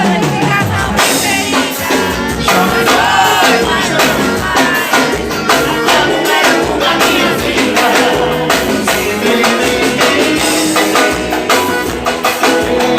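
Loud live band music with a steady drum beat and a bending melodic lead line over it.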